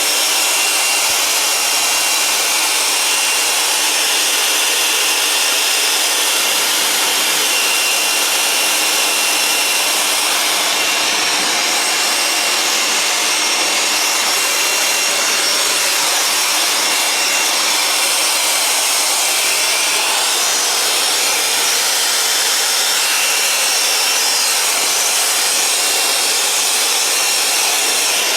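An air blower sending a steady, loud rush of air into a desktop PC case to blow the dust out, with a thin high whine over the hiss.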